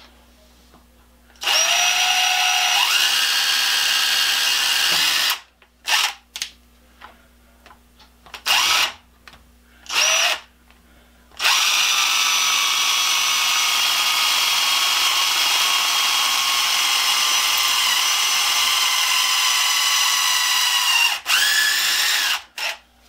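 Cordless impact driver spinning a drill bit through a hard wooden broom handle and broom head, pre-drilling a pilot hole for a screw. It gives a high whine that climbs in pitch as it spins up and runs about four seconds. Then come three short bursts, a steady run of about ten seconds, and a last short burst.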